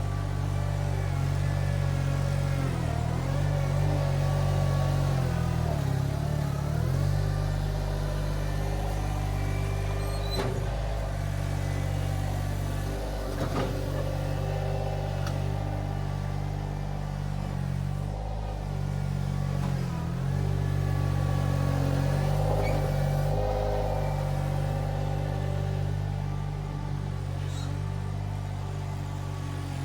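Iron Rhino IR1200 mini skid steer's engine running steadily while it works a tooth bucket through mulch, its pitch shifting a little with the load. A few brief knocks, around ten and thirteen seconds in.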